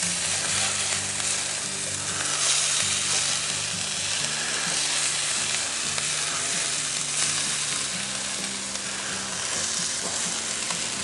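Diced potatoes, sausage, bacon and peppers sizzling steadily in a Lodge Blacklock 12-inch cast iron skillet, while a spatula turns the hash over with light scrapes and clicks against the pan.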